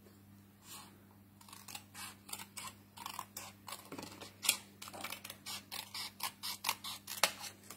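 Scissors cutting a thin strip of white cardstock in a quick run of short snips, several a second, starting about a second and a half in.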